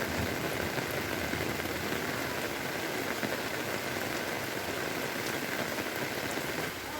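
Heavy rain pouring down steadily, an even hiss of drops on surfaces.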